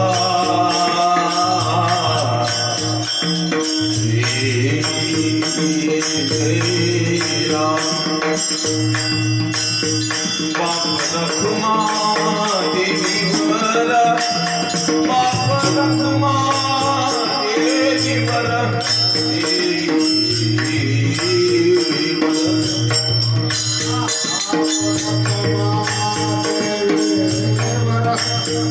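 Marathi devotional bhajan music: a melody line over a steady repeating drum beat, with a constant jingle of small hand cymbals or rattles.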